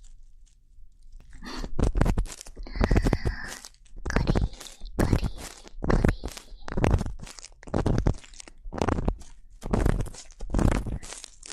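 Ear-cleaning ASMR: an ear-cleaning tool scraping and rubbing close against the microphone in repeated scratchy strokes, roughly one a second, beginning after about a second of quiet.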